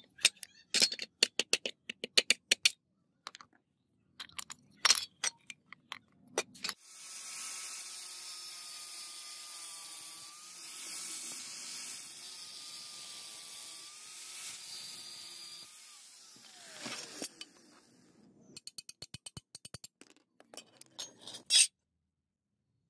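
A steel hammer tapping a pin punch in quick runs of sharp metal strikes, driving the rivets out of a rusted cleaver's wooden handle. After that comes a steady mechanical whir with a faint wavering whine for about nine seconds, then a run of light clicks near the end.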